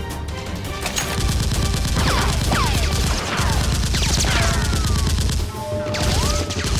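Rapid automatic gunfire starting about a second in, in long bursts, with several falling whistles mixed in.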